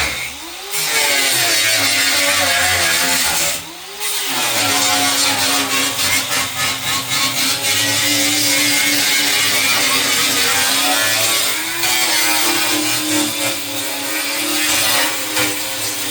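A power cutting tool running hard as it cuts into a steel desk. Its motor drops in speed twice, about half a second in and again about four seconds in, and comes back up to speed each time.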